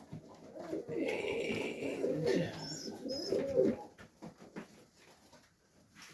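Serbian highflyer pigeons cooing, with low rolling coos overlapping for about four seconds before the sound drops away to quiet.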